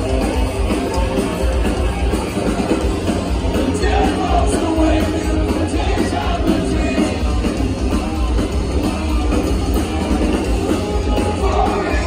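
Live rock band playing loud on electric guitars, bass and drums, with a voice singing over it, heard from within the audience.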